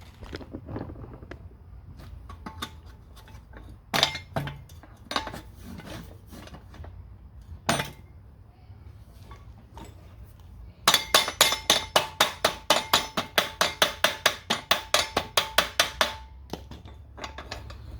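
Steel exhaust pipe and collector being handled and knocked, with scattered clinks and a couple of louder knocks. About eleven seconds in comes a quick run of light taps, several a second, each leaving a short metallic ring, which stops after about five seconds. The taps fit the pipe being tapped into place on the collector.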